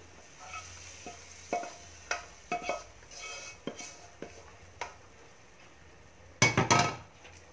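A wok being scraped and knocked with a wooden spatula as fried spice paste is tipped into a pot of chicken soup. Scattered scrapes and knocks build to a loud run of knocks about six and a half seconds in.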